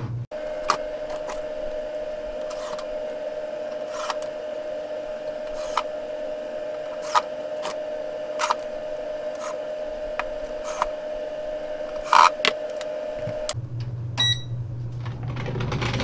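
A steady mechanical hum with scattered sharp clicks and knocks as an electric space heater's metal chassis is handled and fitted into its wooden cabinet. A short beep follows near the end.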